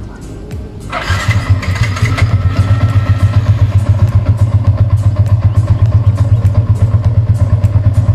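Yamaha Y15ZR's 150 cc single-cylinder four-stroke engine started remotely by the auto-start alarm: about a second in the starter turns it over and it catches, then it idles steadily with an even pulse.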